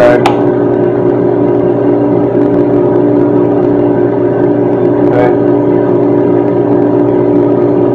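Loud, steady mechanical hum made of several held tones that do not change, with a faint tap near the start and another about five seconds in.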